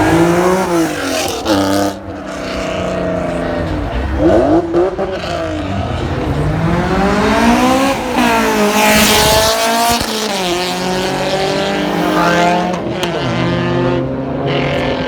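Performance car engines revving hard, the pitch climbing and dropping several times as the cars accelerate and shift.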